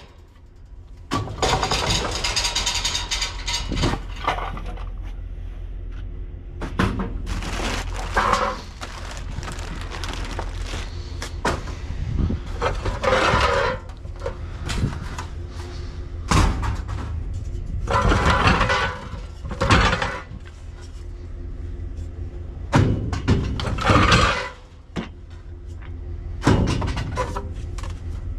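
Clattering and rustling of household junk being handled and sorted, in irregular bursts every second or two, over a steady low hum.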